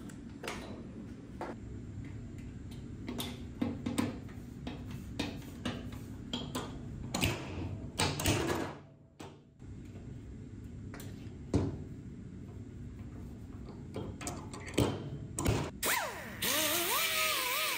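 A stud welder snapping as it fires studs onto a steel pickup bed floor, and the knocks of a slide-hammer dent puller on the studs, pulling dents out of the panel. Near the end a small pneumatic disc grinder spins up with a rising whine.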